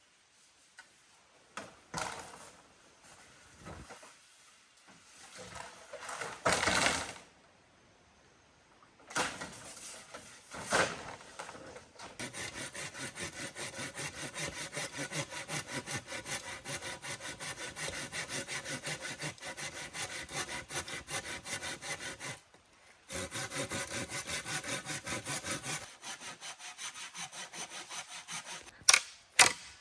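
Hand saw cutting through wood in quick, even strokes, one long run and then a shorter one after a brief pause. Before it come scattered knocks and handling of wood, and two sharp clicks near the end.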